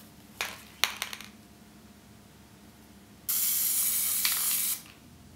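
A few light clicks about a second in, then an aerosol spray-paint can spraying in one steady hissing burst of about a second and a half that cuts off sharply.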